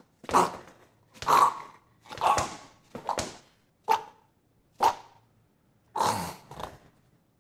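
A man struggling while being attacked, letting out short choked gasps and grunts, about one a second, around seven in all.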